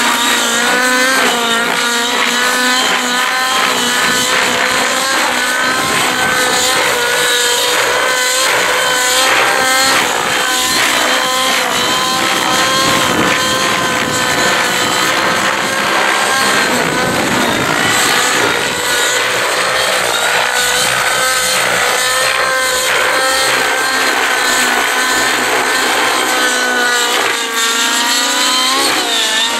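Next-D Rave ENV 90 nitro RC helicopter's two-stroke glow engine running at high revs in 3D aerobatic flight, its pitch rising and falling with the manoeuvres. Rotor blade noise swells in the middle.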